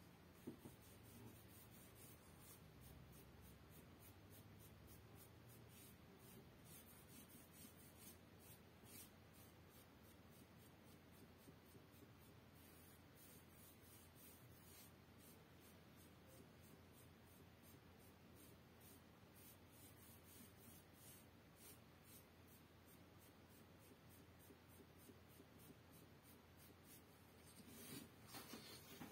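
Faint, scratchy strokes of a dye applicator rubbing leather dye onto leather, repeated many times and a little louder near the end.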